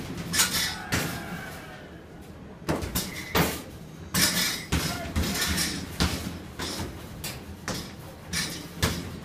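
Basketballs hitting the backboard and hoop of an arcade basketball machine in a quick, irregular string of thuds and knocks.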